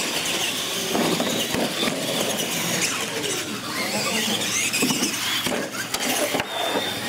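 R/C monster trucks racing across a concrete floor, their electric motors whining and sweeping up and down in pitch, with tyre squeal.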